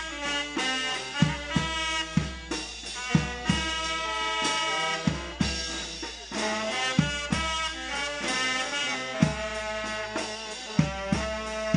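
Vietnamese funeral brass band of saxophones, a trumpet and a tuba playing a tune in several held parts, with a bass drum thumping under it.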